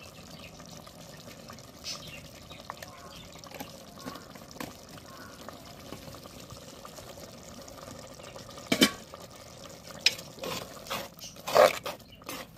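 Curry bubbling faintly in a clay pot, then, from about nine seconds in, a steel spoon knocking and scraping against the clay pot as the curry is stirred.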